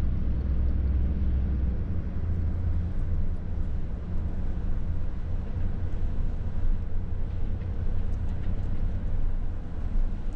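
Steady low rumble of a car driving slowly, its engine and tyre noise heard from inside the cabin.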